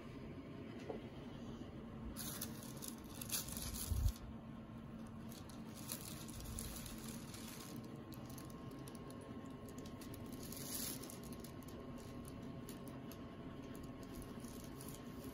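Tissue-paper wrapping of a balloon bouquet rustling and crinkling as it is handled, in a few faint bursts, with a soft bump about four seconds in.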